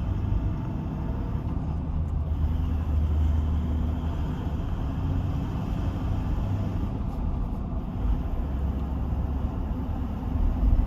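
Motor vehicle driving: a steady low engine and road rumble with no breaks, cut off suddenly at the end.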